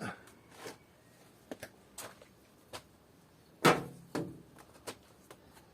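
Hose pipe being handled and settled onto a plastic wall-mounted hose rail: scattered light clicks and knocks, with two louder knocks a little past halfway.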